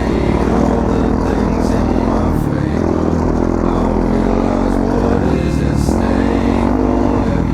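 Off-road bike engine running while riding, its pitch rising and falling a few times as the throttle changes.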